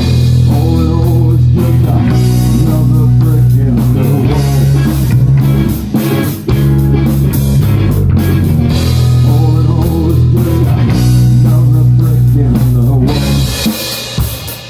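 Live rock band playing: electric guitar and drums over a sustained low bass line. About a second before the end the bass and guitar drop away, leaving mostly drum hits.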